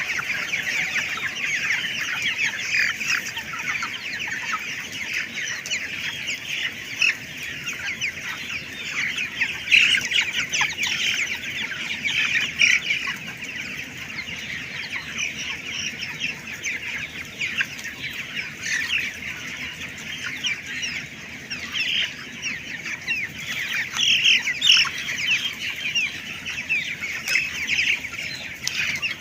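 A large flock of three-week-old broiler chickens calling all at once: a dense, unbroken chorus of overlapping high peeps and chirps, with a few louder calls standing out now and then.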